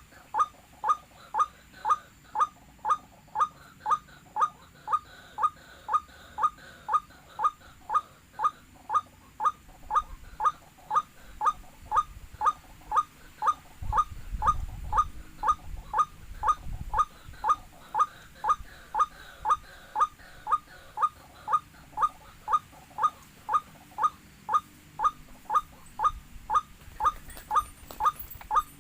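White-breasted waterhen call, a short "wak" note repeated with machine-like evenness about one and a half times a second, as a looped lure recording is played to draw the birds in. A low rumble joins it for a few seconds around the middle.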